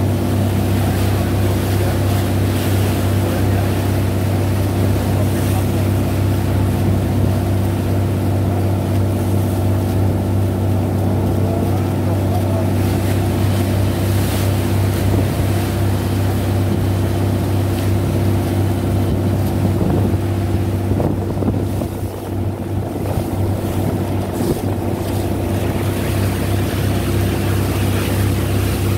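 A wooden fishing boat's engine running steadily with a deep hum, over the rush and splash of water along the hull as it pushes through choppy sea.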